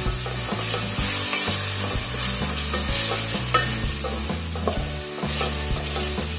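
Ground meat with diced carrot and onion sizzling in oil in a stainless steel pot, stirred and scraped with a wooden spoon, with scattered light clicks of the spoon against the pot.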